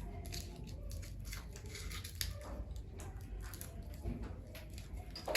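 Crinkling and tearing of a Kit Kat wrapper being pulled at by hand: a run of small crackles, with a sharper, louder tear near the end. The packaging is tight and hard to open.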